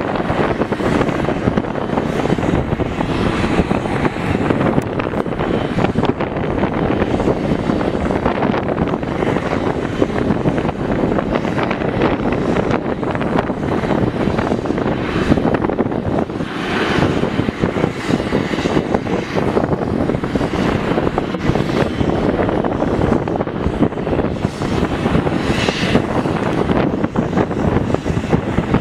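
Boeing 777-300ER's GE90 jet engines running, a steady rushing noise with a faint higher whine rising and fading now and then, mixed with wind on the microphone.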